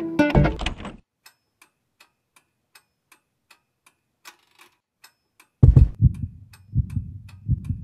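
Guitar music dies away about a second in, followed by a clock ticking faintly and evenly, a little under three ticks a second. Near the end, low, uneven thumps take over.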